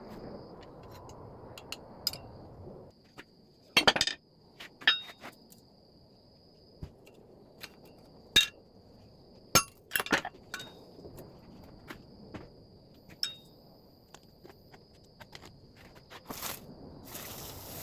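Irregular sharp metallic clinks and light strikes of steel pieces and tools in a blacksmith's shop, several ringing briefly, over a faint steady high whine. A hiss starts near the end.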